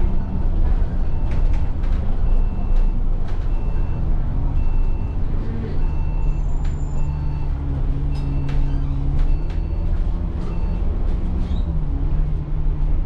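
Alexander Dennis Enviro400 double-decker bus heard from inside while driving: a steady engine drone and road noise, with the engine note shifting near the end. Frequent clicks and rattles and a faint short beep that repeats through the ride.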